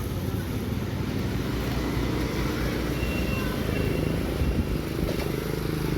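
Road traffic passing a roadside spot, a steady low rumble of engines and tyres.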